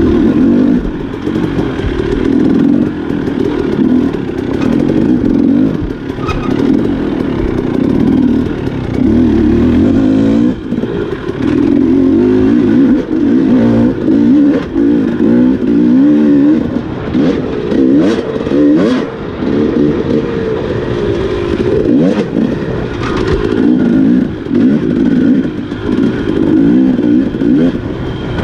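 Dirt bike engine being ridden hard over an enduro trail, its pitch rising and falling continuously as the throttle opens and closes. Scattered clattering knocks run through it, more often in the second half.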